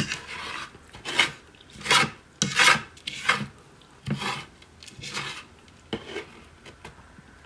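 Flaky puff pastry crackling and crumbling as it is broken up, in a series of short rasping crackles roughly one a second.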